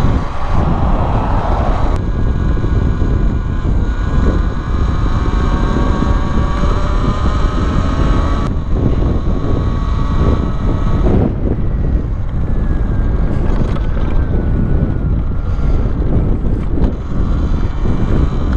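Heavy wind buffeting on the microphone of a Talaria Sting R electric dirt bike under way, with the faint whine of its electric motor shifting in pitch as the speed changes.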